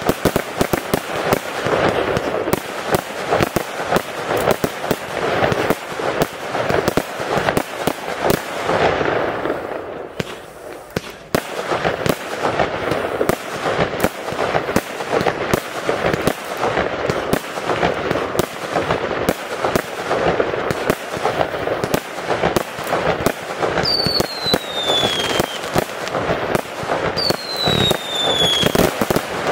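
A fireworks display: rapid, dense bangs and crackling bursts, with a brief lull about ten seconds in. Near the end come three whistles that fall in pitch.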